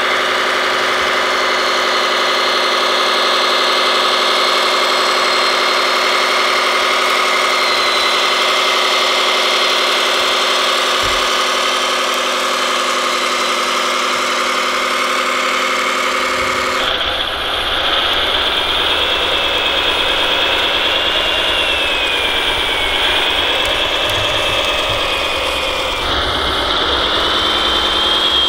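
Simulated truck diesel engine from an RC model truck's onboard sound module, running steadily, with a thin high whine that wavers in pitch. The engine note changes abruptly about 17 seconds in.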